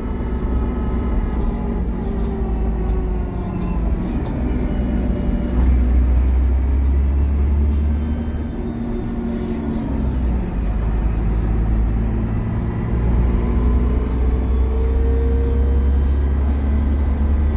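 Dennis Trident double-decker bus engine working hard under acceleration, its heavy drone swelling and easing as the revs rise and fall through the gears. A whine, the 'hoovering', glides up in pitch over the engine noise, most clearly near the end.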